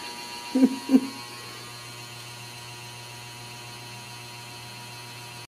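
A steady electrical hum. It starts after two short vocal sounds about half a second and a second in.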